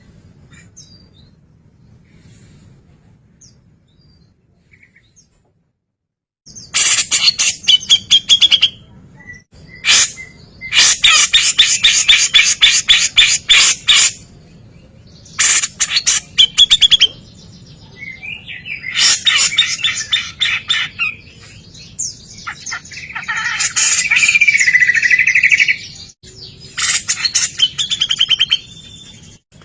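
Grey-cheeked bulbul (cucak jenggot) calling in loud bursts of rapid-fire chattering notes, the fast 'tembakan' call. There are six bursts of one to four seconds each, starting about six seconds in.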